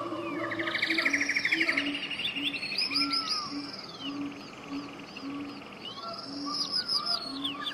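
Tropical jungle soundscape: several birds and other animals calling at once, with arching high whistles, a fast buzzy trill, and a low hooting note repeated about twice a second underneath.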